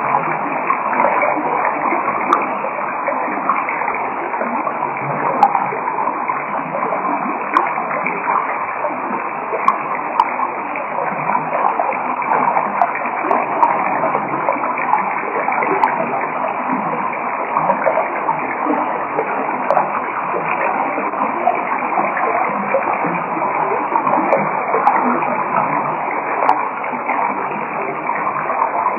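Steady, muffled rushing noise with a grainy, crackling texture and no high end, with a few faint ticks scattered through it.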